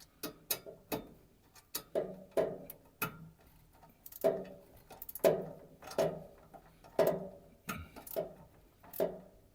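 Locking screw on the glow-igniter clamp of a pellet stove being tightened with a hand tool: a string of irregular metallic clicks and knocks, roughly one or two a second, each with a brief ring.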